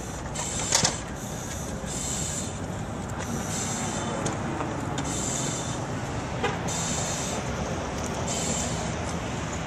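Rhythmic hiss of a firefighter breathing through an SCBA air regulator, about one breath every second and a half, over a steady low rumble. A few light metallic clicks come from the aluminium extension ladder being handled.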